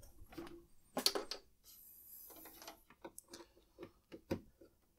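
Small clicks, knocks and a brief scrape of hands working on parts inside an open Amiga 2000 computer case, a cluster of sharper clicks about a second in.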